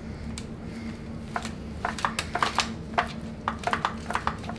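Knife slicing down through a whole smoked chicken's breast in a foil pan: a run of quick, sharp crackles and clicks starting a little over a second in, over a steady low hum.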